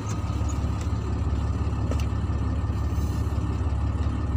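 Shacman F2000 dump truck's diesel engine idling steadily, heard from inside the cab as a low rumble.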